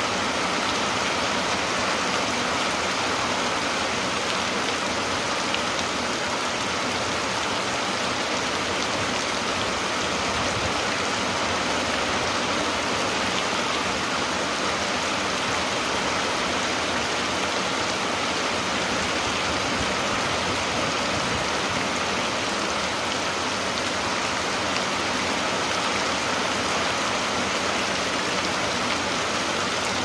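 Heavy rain falling steadily, a dense, even hiss that does not rise or fall.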